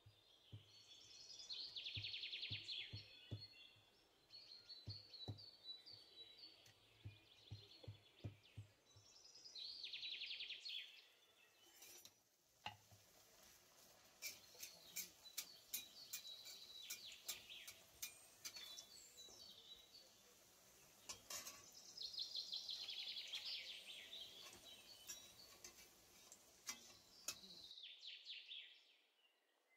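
Songbirds chirping and trilling, a recorded birdsong track, with bursts of rapid trills returning every several seconds. It is faint, with scattered sharp clicks and soft low knocks under it.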